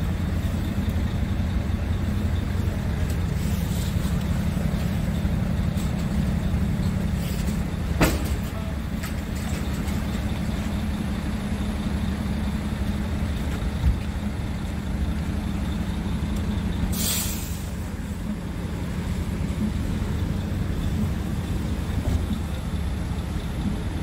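Scania P truck's diesel engine idling steadily. A sharp click comes about eight seconds in, and a short hiss of air from the truck's air system about seventeen seconds in.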